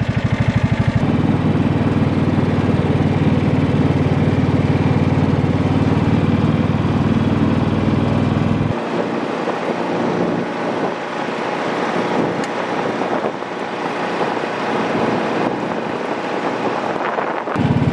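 Small engine of an off-road buggy running steadily with a deep hum. The deep hum drops away abruptly about nine seconds in, leaving a lighter running and rumbling noise.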